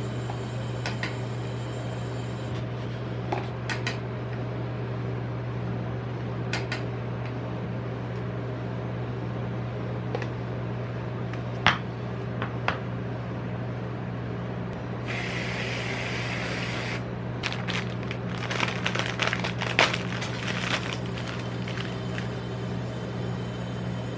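Rolled ice cream being worked on a cold metal plate: metal spatulas tap and scrape on the plate over a steady low hum. There is a short hiss about fifteen seconds in, then a quick run of taps and scrapes.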